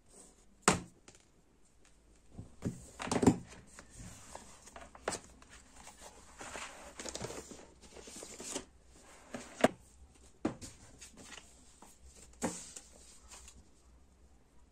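Close desk-handling sounds while studying: paper and crinkly plastic packaging rustling, broken by several sharp taps and knocks of things handled on the desk.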